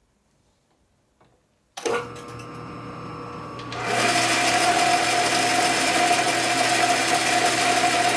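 Metal lathe switched on about two seconds in: the spindle comes up to speed with a steady hum. About two seconds later the sound jumps louder and turns into a steady machining noise with a high whine as the tool feeds out through the cut.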